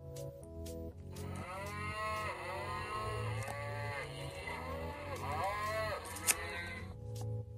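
Recorded cow mooing played through the small speaker of a children's sound book's button panel: a run of moos starting about a second in and lasting about five seconds, with a sharp click near the end.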